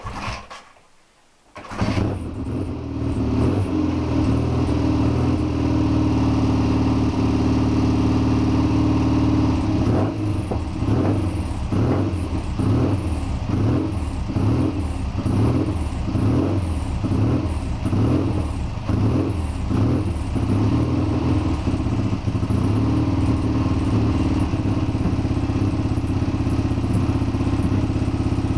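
Triumph Bonneville T120 650 cc parallel-twin engine catching on full choke about two seconds in from a cold start, then running steadily. From about ten to twenty seconds in, its note rises and falls about once a second, then it settles back to an even run.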